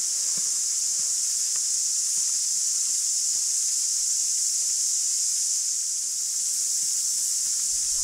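Steady high-pitched hiss throughout, with a few faint footsteps on a dirt track fading away in the first two seconds.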